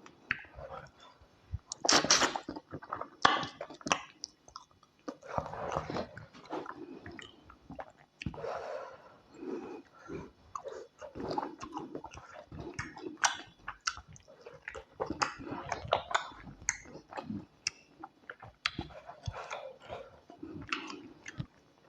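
Close-up eating sounds: a person chewing and smacking on tilapia fish pepper soup and soft white starch, with many irregular wet clicks and slurps.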